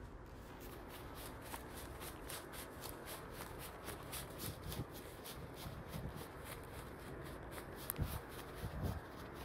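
Footsteps and rustling of someone walking through grass, with a few low thuds in the second half. Over it runs a fast, even ticking, about four ticks a second.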